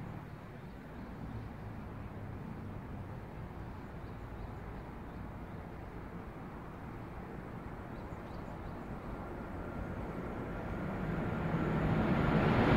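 A KTX-Sancheon high-speed train approaching on the line. After a steady low background rumble, the train's noise builds from about ten seconds in and grows steadily louder toward the end.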